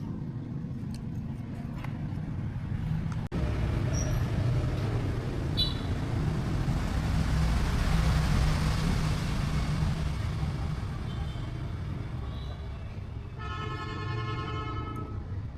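A motor vehicle's engine runs with a steady low rumble that swells and grows louder towards the middle. A horn sounds one held toot for about a second and a half near the end.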